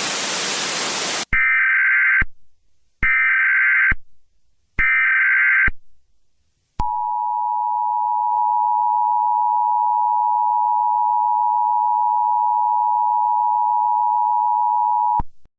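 A burst of static, then an Emergency Alert System SAME header: three short bursts of screechy data tones about a second apart. It is followed by the two-tone EAS attention signal, held steady for about eight seconds, which signals that an emergency alert message follows.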